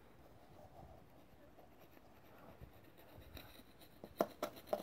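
Faint scraping of a flat-bladed hand tool over the deck face of a DOHC cylinder head, lifting deposits off the gasket surface, with two sharp clicks near the end.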